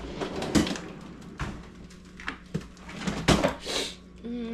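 A few scattered knocks and clunks of kitchen items and a cupboard or door being handled, the loudest about three seconds in.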